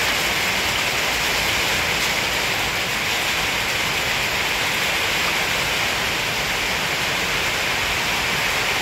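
Steady, even rushing noise with no breaks or distinct sounds, brightest in the upper-middle range, like heavy rain or running water.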